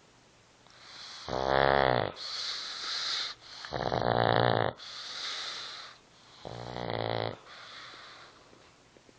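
Snoring: three loud rattling snores on the in-breath, each followed by a softer hissing out-breath, in a slow rhythm about every two and a half seconds.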